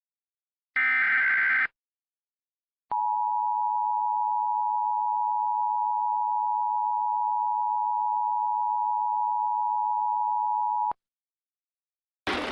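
Emergency Alert System tones. A SAME header data burst lasts about a second, followed after a short gap by the EAS two-tone attention signal. The attention signal holds one steady pitch for about eight seconds and cuts off abruptly. Just before the end, a loud noisy hiss sets in.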